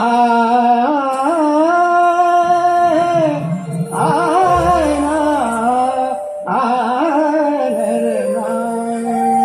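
A man singing an Uttarakhandi hill folk song into a microphone, unaccompanied and without words: long, held, ornamented notes in three drawn-out phrases, with short breaths about three and a half seconds and six seconds in.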